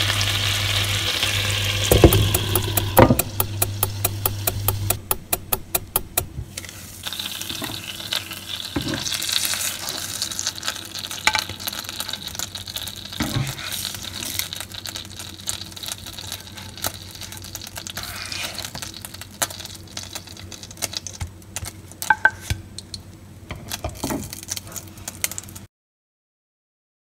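Pancake batter sizzling and crackling in a hot nonstick frying pan over a low hum that stops about five seconds in, followed by scattered knocks and scrapes of a spatula against the pan as the pancakes are lifted out onto a plate. The sound cuts off suddenly near the end.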